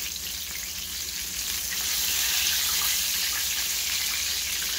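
Breaded porgy fillet shallow-frying in hot oil in a stainless steel skillet: a steady sizzle that gets a little louder about two seconds in.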